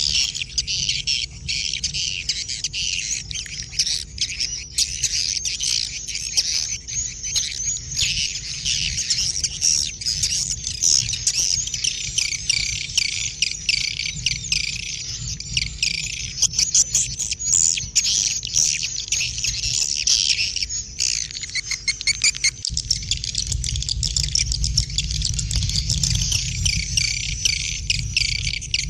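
Dense, continuous high-pitched chirping and twittering of many small birds, the short calls overlapping without a break.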